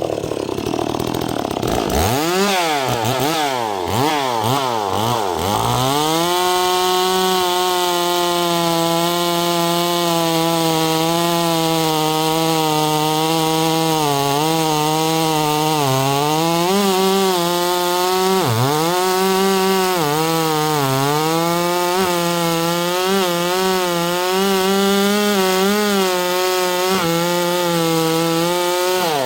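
Stihl 260-clone 50 cc two-stroke chainsaw revved a few times, then held at full throttle cutting through an oak log. The pitch sags several times midway as the chain loads in the cut, and falls away right at the end as the throttle is released.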